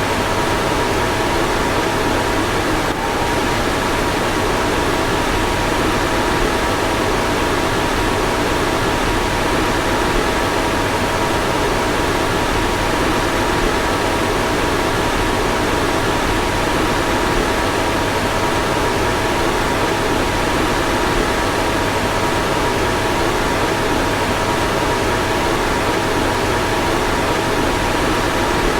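A car fan blowing air steadily, an even rushing noise with a faint steady whine in it.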